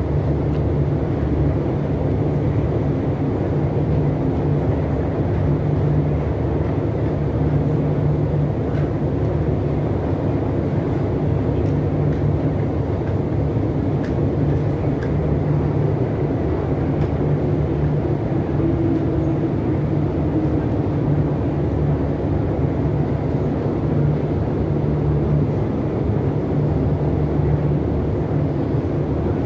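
Long metro escalator running downward: a steady low rumble and hum of its machinery and steps, without a break.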